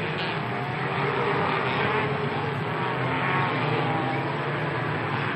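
Several autocross saloon cars' engines revving as they race on a dirt track, the engine pitch rising and falling through the pack.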